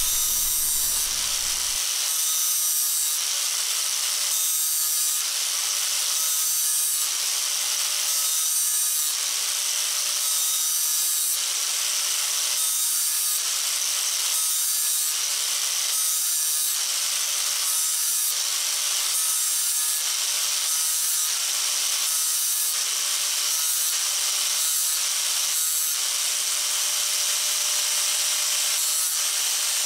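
Angle grinder with an abrasive disc grinding the edge of a steel wheel spoke, easing and deburring it. The motor runs steadily while the disc scrapes the metal, rising and falling about once a second as it is worked along the edge.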